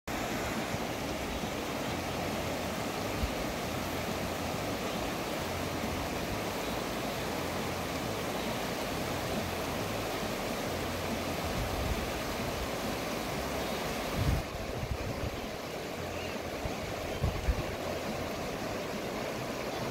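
Shallow river rippling and rushing steadily over rocks, with a few brief low thumps in the second half.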